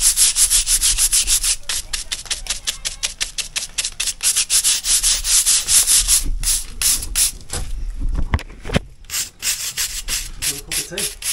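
Stiff bristle brush scrubbed back and forth over brickwork in quick, rasping strokes, several a second, brushing loose mortar snots off the wall face and raked-out joints.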